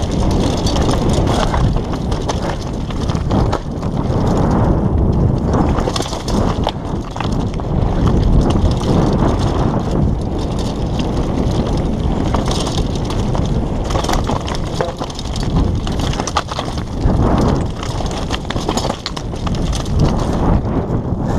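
Downhill mountain bike rattling and its knobby tyres crunching over loose rock and gravel at speed, with many sharp knocks from hitting stones.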